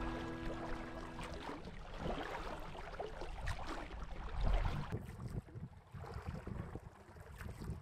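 Oars dipping and water splashing around a rowed dinghy, in uneven strokes, with some wind on the microphone. A music note fades out in the first second and a half.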